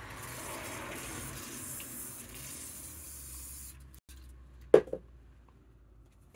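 Aerosol cleaner spraying in a steady hiss for about three and a half seconds, then stopping. A sharp knock follows just under five seconds in as the can is set down on the bench.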